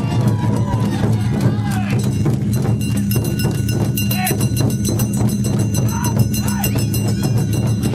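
Live awa odori festival music: a steady low drum beat with a small hand gong (kane) clanging rapidly and evenly over it, and crowd voices.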